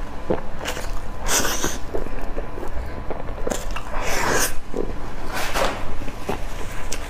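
Close-miked eating sounds: a person biting into and chewing a piece of fried pastry. Three louder bites or smacks come about a second in, around four seconds in and about five and a half seconds in.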